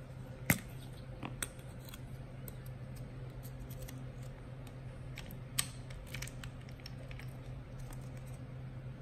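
Clicks and small plastic rattles from handling a 35mm film cartridge and its plastic canister, over a steady low hum. The loudest click comes about half a second in, as the canister lid pops off, and another sharp click comes a little past the middle.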